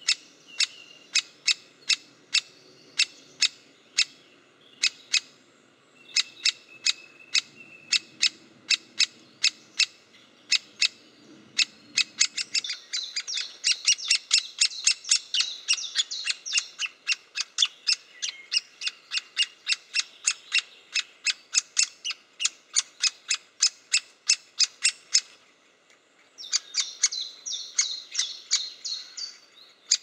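Great spotted woodpecker nestling calling incessantly from the nest hole: sharp, high calls at about two a second. From about halfway in, the calls turn into a faster, louder begging chatter as an adult comes to the hole. They ease off briefly and then build again near the end.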